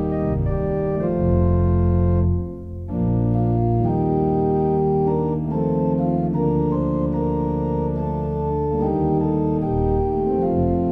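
Organ playing sustained chords, changing from chord to chord, with a brief break about two and a half seconds in.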